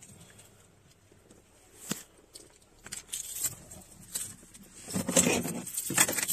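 Handling noise of a phone being moved around inside a car: a sharp click about two seconds in, then scattered clicks and rustling that grow louder about five seconds in.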